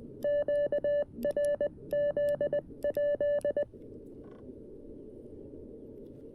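Morse code from a CFT-1 CW transceiver: a clean, steady-pitched keyed tone sending a quick run of dits and dahs for about three and a half seconds, then stopping, leaving only the receiver's steady band-noise hiss.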